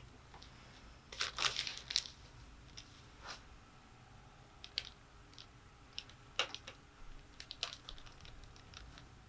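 Soft rustling and crinkling in scattered short bursts as a person shifts and is positioned on a chiropractic treatment table for an adjustment.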